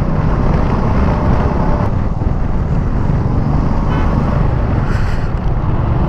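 Royal Enfield Meteor 350's single-cylinder engine running steadily under way, with wind noise on the microphone.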